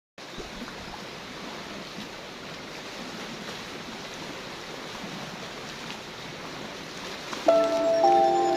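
Sea waves washing on the shore, a steady rushing noise. About seven and a half seconds in, louder music with chime-like mallet tones comes in over it.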